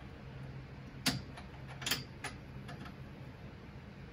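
Four-flute end mill turned by hand in a roll-bar bolt hole, scoring a ring into the car's sheet-metal floor pan: a handful of irregular sharp clicks and scrapes, over a steady low hum.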